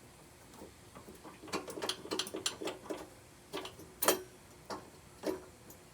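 Metal parts of a mini bike's rear wheel assembly clinking and knocking as the axle and spacer are worked into place. A quick run of small clicks is followed by four separate sharp clinks, each with a short metallic ring; the loudest comes about four seconds in.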